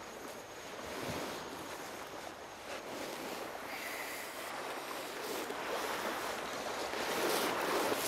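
Surf washing on a sandy beach: a steady rushing noise that swells a little near the end.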